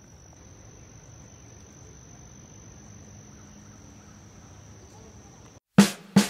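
Faint, steady high-pitched insect trill held on one note over a low outdoor rumble, cutting off near the end as plucked-guitar music comes in.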